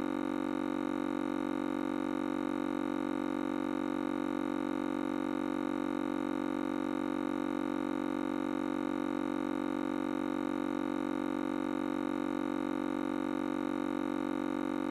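A steady, unchanging hum of several held tones, strongest low in pitch, with no breaks or changes.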